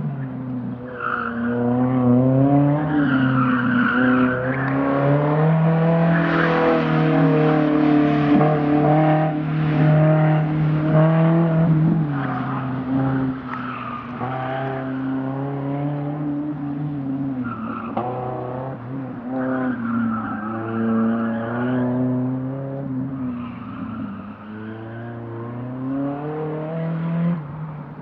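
Dodge Neon ACR's four-cylinder engine revving hard on an autocross run, its pitch climbing and falling again and again as it accelerates and lifts between the cones. Tyres squeal in the turns. It is loudest in the first half, fainter in the middle as the car runs far off, and nearer again toward the end.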